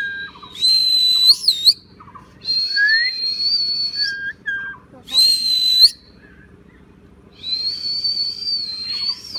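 Common myna whistling: four long, steady, high whistles, most ending in an upward flick, with short lower chirping notes between them.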